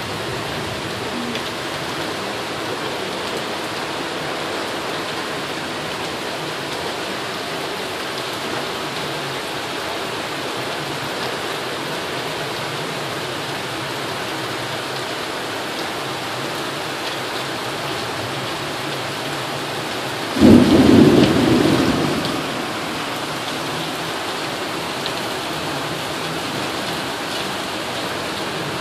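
Steady rain, with one sudden thunderclap about twenty seconds in that fades away over a second or two.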